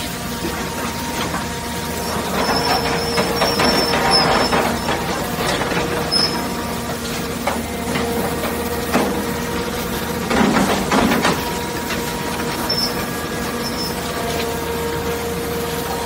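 Hydraulic scrap metal shear working scrap rebar: a steady hum from its hydraulic power unit, with irregular clanking and knocking of steel bars, loudest about ten seconds in.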